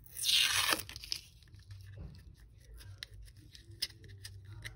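Brown protective paper being peeled and torn off a clear acrylic stamping block: one short loud rip just after the start, followed by small crinkles and ticks as the paper is handled.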